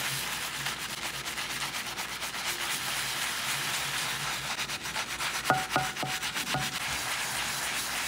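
Stiff scrub brush scrubbing a copper pan's bottom with powdered cleanser: a steady, rapid, gritty back-and-forth scraping. A few brief tones come through about two-thirds of the way in.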